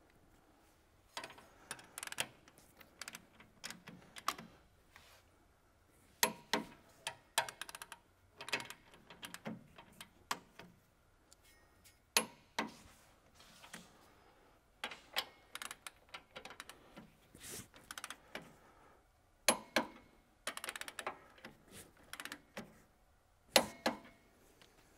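Ratchet torque wrench clicking in irregular strokes and short runs while tightening the outer shear bar bolts, with a few louder single sharp clicks among them.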